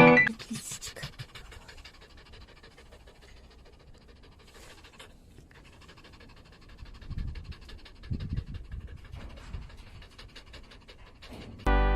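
A dog panting in quick, even breaths, with a few louder, deeper breaths partway through.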